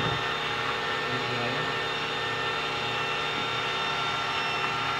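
Steady mechanical hum with several high, unchanging whining tones over it.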